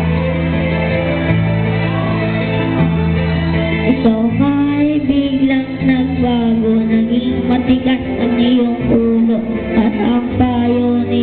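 A boy singing a song into a handheld microphone over accompanying backing music, with sustained chords underneath his wavering sung melody.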